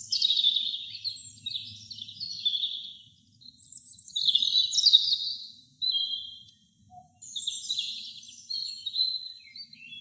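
European robin singing: a run of high, thin, warbling phrases, each one to two and a half seconds long, with short pauses between them.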